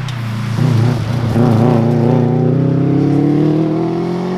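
Subaru WRX STI's turbocharged flat-four engine pulling hard under full acceleration, with a short break about half a second in and then its pitch climbing steadily.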